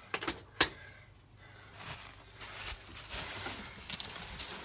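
Tools working the oil filter housing cap: a couple of sharp clicks and a loud knock about half a second in, then a soft uneven rustling and scraping as the cap is turned loose.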